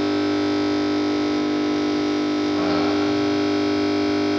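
A steady buzzing hum made of many fixed tones at an even level, typical of an electrical hum. A faint brief wavering sound comes in about two and a half seconds in.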